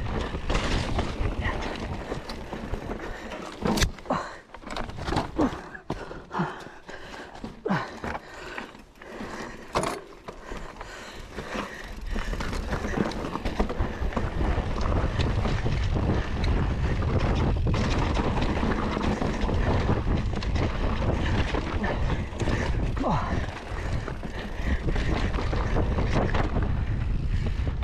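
Mountain bike ridden along a trail: wind rushing over the microphone, with a run of rattles, clicks and knocks from the bike over rough ground in the first third, then a steady wind rush.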